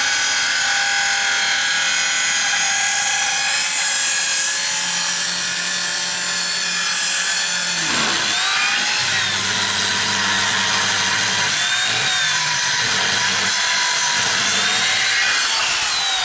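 Handheld electric circular saw ripping a wooden plank lengthwise, the motor running steadily under load as the blade cuts through the wood.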